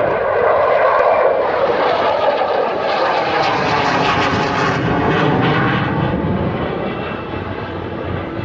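F-16 fighter jet flying past with its jet engine at display power: a loud roar that swells, peaks in the middle with a harsh high hiss and sweeping, wavering tones, then slowly fades as the jet moves away.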